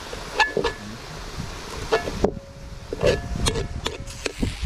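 Sharp metallic clanks of a utensil against a metal cooking pot, several of them leaving a short ringing tone.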